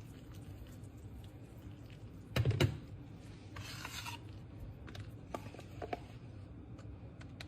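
Quiet kitchen utensil handling: rubbing and scraping against a dish, with one louder knock about two and a half seconds in and a couple of small clicks later, over a low steady hum.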